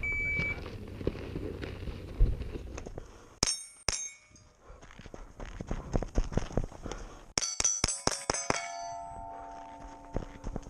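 A shot timer beeps once at the start, then rifle shots ring steel plate targets. Two clanging hits come a little under four seconds in, then a fast string of about eight shots and hits follows. The steel rings on afterward.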